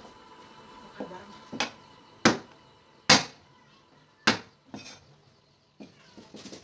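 Kitchen knife chopping garlic cloves on a plastic cutting board: about seven separate knocks of the blade on the board, irregularly spaced and loudest in the middle, then lighter quick taps near the end.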